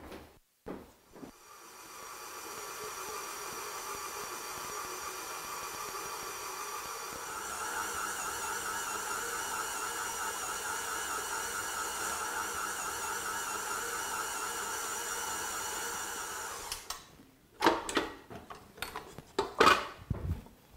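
Stand mixer's motor running steadily as its dough hook kneads a stiff bagel dough, stepping up louder about a third of the way in, with a slight regular wobble in pitch as the dough drags on the hook. It stops near the end, followed by a few knocks and clunks of the metal bowl being handled.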